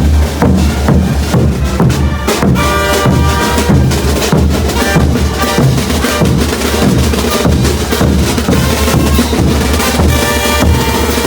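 Bolivian brass band playing, with a steady bass drum and snare beat driving under the brass; the horn lines stand out most clearly about two and a half seconds in and again near the end.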